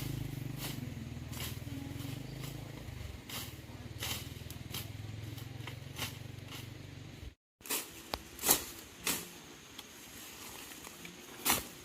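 An engine running steadily with regular sharp clicks over it, which cuts off abruptly about seven seconds in; after that come scattered sharp knocks and clicks.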